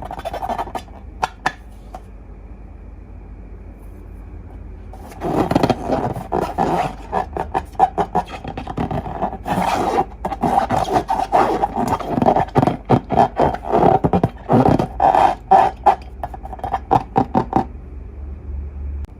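Slime being squeezed and worked by hand, making a dense run of sticky crackles and pops. The run starts about five seconds in and stops near the end, after a few scattered clicks at the start.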